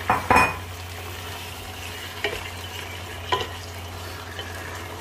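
Raw chicken pieces sizzling in hot oil with fried onions in a nonstick pot while a wooden spatula stirs them. The spatula knocks against the pot twice at the start, which is the loudest moment, and a couple more times later.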